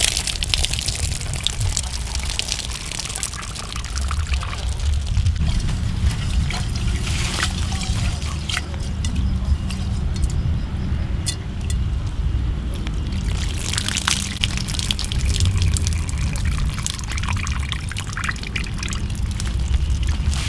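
Water poured from an aluminium pot splashing onto leaves and soil, followed by a few light clinks and knocks as the pot is handled on a wooden table, all over a steady low rumble.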